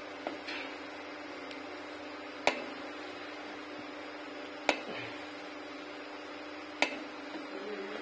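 A metal ladle clinks sharply against the pan four times, about two seconds apart, as it scoops and pours melted butter that is being cooked down into ghee. A steady low hum runs underneath.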